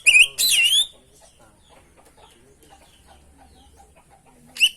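Oriental magpie-robin (kacer) singing loud, clear whistled phrases with quick rising and falling sweeps, breaking off about a second in and starting again near the end after a pause of three and a half seconds.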